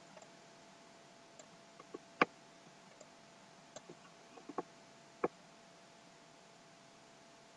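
Faint, scattered computer mouse clicks, about eight, irregularly spaced, the loudest about two seconds in, over a faint steady hum.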